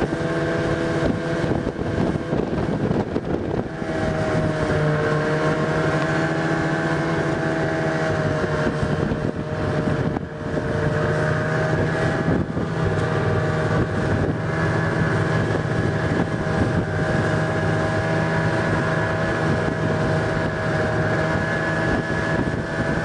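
Ski-Doo snowmobile engine running steadily at cruising speed, its pitch rising and falling slightly, with wind buffeting the microphone.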